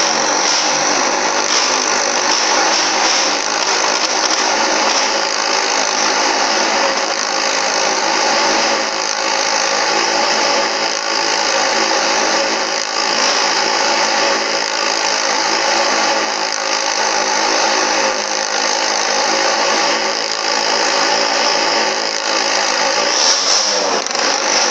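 Motorcycle engine running at a steady, even speed as the bike circles the tong edan (wall-of-death) drum. Its pitch wavers briefly near the end.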